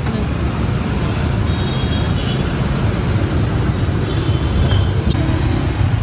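Steady low rumble of street traffic noise, with two faint brief high tones about a second and a half and four seconds in.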